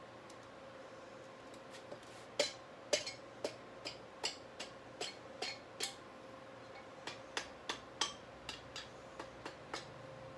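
A mallet tapping the top of a VW Beetle engine's cylinder barrel to seat it on the case. It makes about twenty sharp, light knocks, two or three a second, starting about two seconds in, with a brief pause in the middle.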